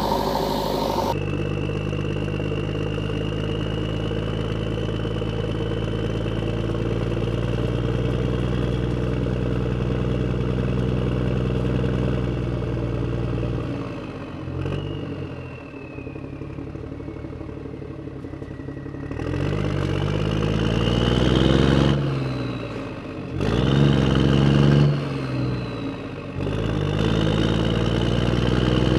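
A vehicle engine running steadily, then revving up several times in short stretches, the sound changing abruptly at each break.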